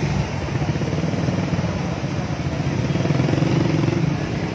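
A motor vehicle engine running steadily nearby, with street noise around it.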